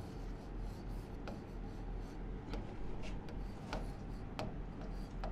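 Stylus tapping and sliding across the screen of an interactive display as words are handwritten, with a few scattered light clicks.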